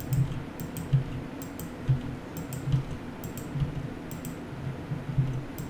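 Computer keyboard and mouse clicking: about a dozen short, irregular clicks while a curve is extruded point by point in Blender.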